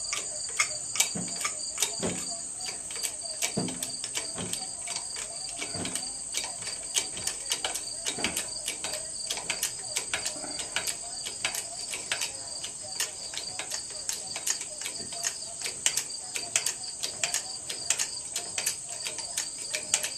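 Crickets chirring steadily, with many irregular light clicks and ticks throughout and a few duller knocks in the first six seconds.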